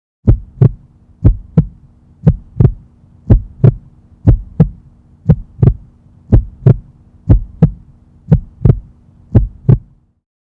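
Heartbeat: a steady run of double 'lub-dub' beats, about one pair a second, over a faint steady hum. It stops shortly before the end.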